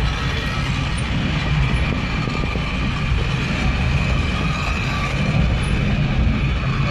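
Water-balanced cliff railway car travelling on its steep track: a steady rumble from the wheels on the rails, with a faint high steady tone above it.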